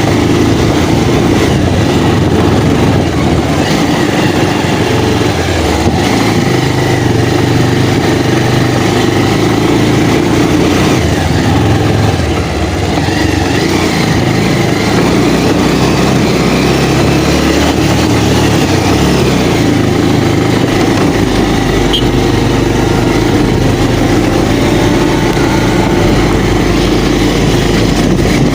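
Motorcycle engine running as it is ridden: a loud, continuous drone whose low note shifts a few times, deepening about two-thirds of the way through.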